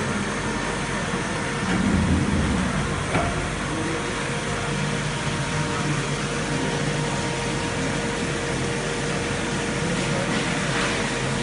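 Richardon R 400 CNC gear hobbing machine running through a cut, a steady mechanical hum with a faint constant whine, under a flood of cutting oil splashing over the cutter and workpiece. A louder low rumble comes about two seconds in, and a sharp click follows soon after.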